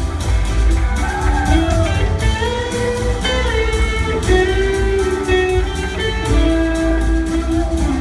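Live blues-rock band jamming: an electric guitar lead whose notes slide up and down in pitch, over bass and a steady drum beat.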